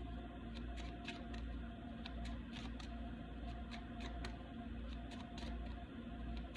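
Faint, steady background music tones with scattered light clicks and taps of tarot cards being handled on a table.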